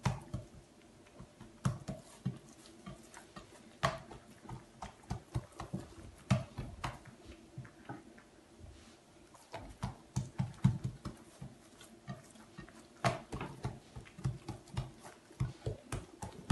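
Hands stretching and folding buttered dough in a glazed clay dish: an irregular run of soft slaps and clicks, with a few sharper knocks now and then.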